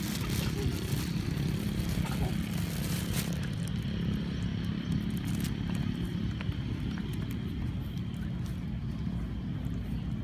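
Steady low rumble of motor traffic, with a few light clicks.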